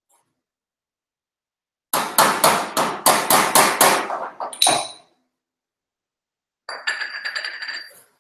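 Hammer striking the metal at the lower rear of a Daihatsu Hijet micro truck. A run of about a dozen sharp blows comes at roughly four a second, the last one ringing. After a pause, a quicker, lighter run of taps follows, also ringing.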